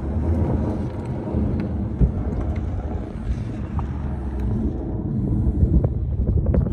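Gusty wind buffeting the microphone: a steady low rumble with irregular thumps.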